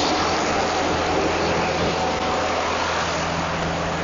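Diesel engine of a hydraulic power pack running at a steady speed: a constant low engine drone under a broad hiss, fading slightly.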